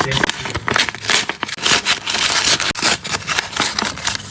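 Blind-bag packaging crinkling and crackling as it is handled and torn open, a dense run of irregular crackles.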